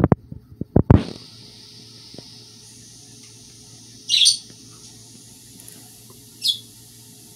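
A few sharp clicks and knocks in the first second, then two short high chirps: one about four seconds in and a shorter one about two seconds later, over a faint steady hum.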